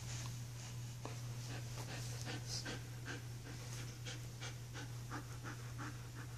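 Young wolfdog panting with her mouth open, quick even breaths at about three a second, over a steady low hum.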